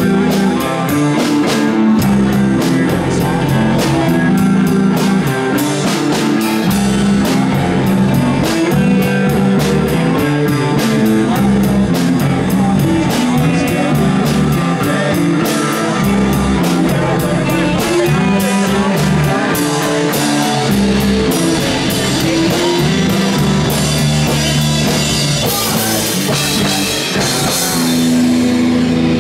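Live rock band playing: drum kit, bass and guitar, with a wash of cymbals near the end.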